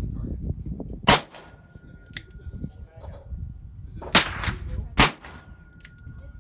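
Ruger Blackhawk single-action revolver firing .38 Special rounds: three sharp shots, the first about a second in, then two under a second apart near the end.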